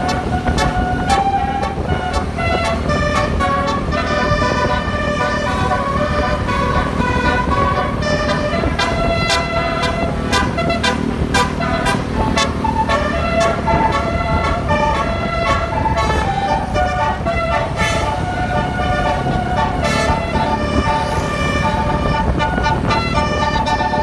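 Bus 'telolet' musical horn playing a continuous tune of changing horn-like notes, with sharp percussive hits running through it.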